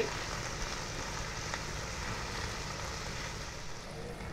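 Chopped bottle gourd, tomatoes and green chillies frying in oil in a non-stick pan, a steady sizzle as a wooden spatula stirs them.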